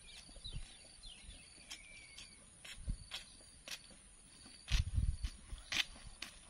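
Footsteps on a concrete lane, about two a second, over a steady high insect trill. A few short chirps come in the first couple of seconds, and a brief low rumble about five seconds in.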